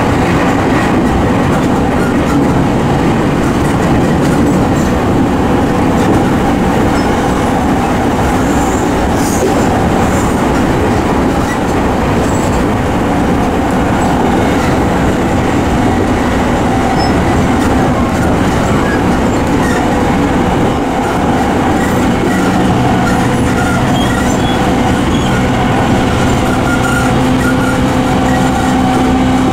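E217 series commuter train running at speed, heard inside a car fitted with MT73 traction motors: steady wheel-and-rail noise with motor hum. A lower hum comes in about two-thirds of the way through.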